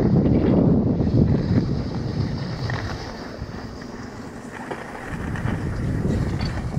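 Wind buffeting the microphone, a low rumble that eases off about halfway through and builds again near the end, over the hiss of skis sliding on groomed snow while being towed up a T-bar ski lift.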